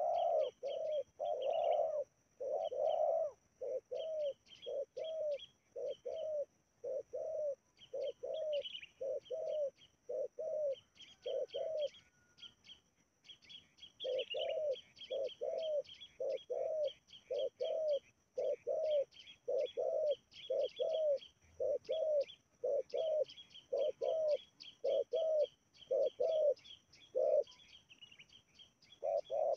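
Spotted doves cooing: a long run of short, low coos at nearly two a second, breaking off briefly near the middle. High chirping of other birds runs over them, along with a steady high-pitched whine.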